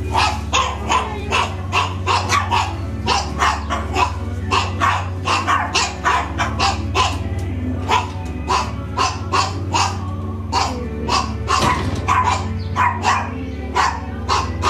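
Dog barking rapidly and without pause, about three barks a second, over a steady low hum.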